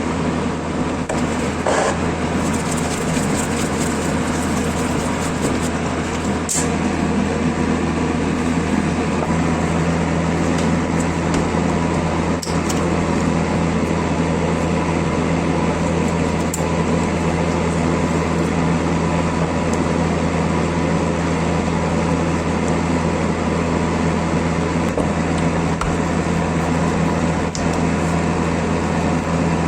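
An electric motor, such as a power tool's, running steadily with a constant hum, with a few brief clicks in the first half.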